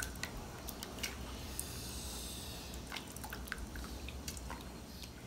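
Silicone spatula stirring gelatin powder into hot water in a nonstick saucepan: faint liquid stirring with scattered light clicks of the spatula against the pan.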